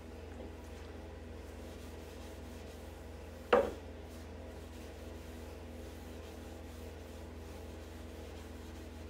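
A cloth rubbing over a wooden chair seat wet with finish restorer, a soft steady rub. About three and a half seconds in there is one sharp knock on the wood.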